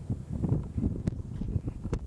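Strong wind buffeting the microphone in irregular low rumbling gusts, with a sharp click about a second in and another near the end.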